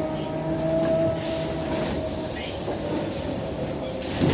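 Scania K270 trolleybus running, its electric traction drive giving a steady whine over road and body rumble. The whine fades about a second and a half in, and a sharp knock comes at the very end.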